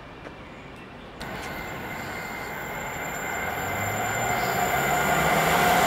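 Electric multiple-unit passenger train approaching through the station, its rumble rising suddenly about a second in and growing steadily louder, with a steady thin whine over it.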